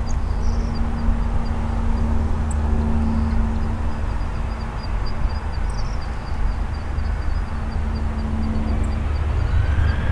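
Boeing 737-800's CFM56-7B jet engines running at low power, a steady distant rumble and hum. About nine seconds in, a whine starts to rise in pitch as engine power is brought up.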